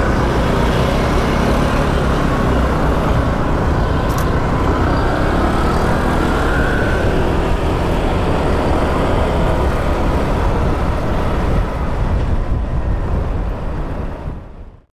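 Scooter ride heard from the rider's camera: engine running and wind rushing over the microphone, fading out near the end.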